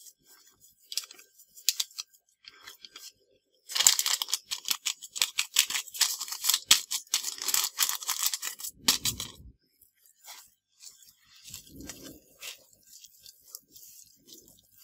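A hand mixing flour into a soft buttery dough in a clay bowl: dry flour rustling and crackling, loudest from about four to nine seconds in, then a few dull squelches as the dough is pressed.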